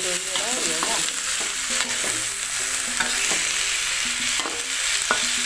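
Chopped bitter melon sizzling in oil in a pan while a metal spatula stirs it, scraping and knocking against the pan again and again.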